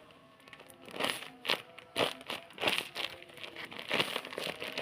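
Paper crinkling in a series of short rustles, from taped paper squishies being handled and squeezed.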